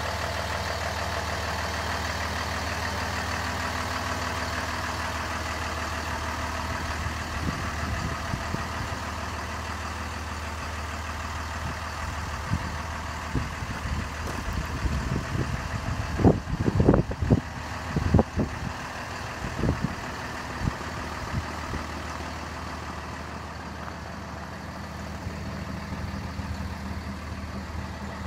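Kenworth T370 dump truck's Paccar PX-6 inline-six diesel idling steadily. A cluster of irregular thumps rises over it for several seconds around the middle.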